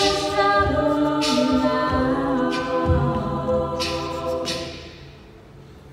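A cappella choir of mixed voices holding the final chord of a song, which dies away about five seconds in.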